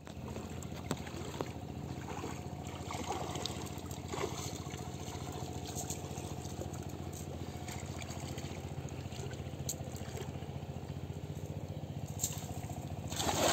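Water trickling and lapping with small splashes as a fisherman wades and handles a cast net, over a steady low hum. About 13 seconds in comes a louder, spreading splash as the thrown cast net lands on the water.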